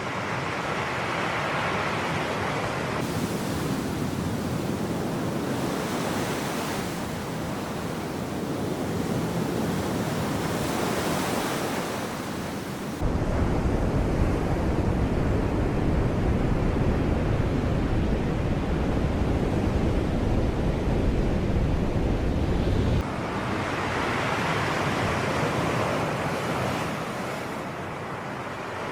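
Sea surf, a steady wash of waves with wind on the microphone. A louder, deeper rumble sets in suddenly about halfway through and stops just as suddenly some ten seconds later.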